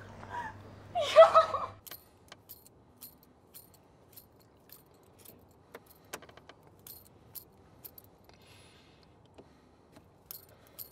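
A woman screaming for help, cut off abruptly about two seconds in. Then faint, scattered small clicks, roughly two a second and unevenly spaced, inside a quiet car.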